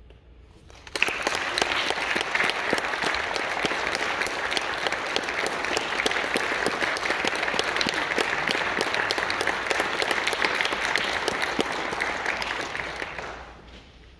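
Audience applauding after a harp piece, starting abruptly about a second in and dying away near the end.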